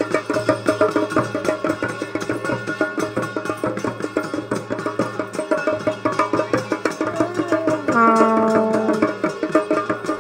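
Fast, driving traditional drumming with other instruments, with a single held note about eight seconds in.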